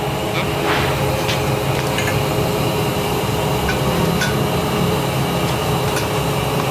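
A steady low mechanical hum, with a few faint metallic clicks.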